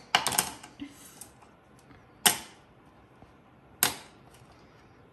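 Small items being dropped into a cup: a quick clatter of several clicks at the start, then single sharp clicks about two seconds in and again near four seconds as items land one at a time.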